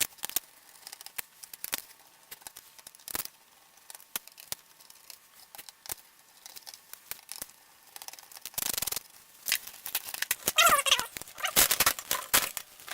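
Small plastic and metal parts of a portable DVD player clicking and scraping as it is taken apart by hand. The scraping gets louder and busier over the last few seconds.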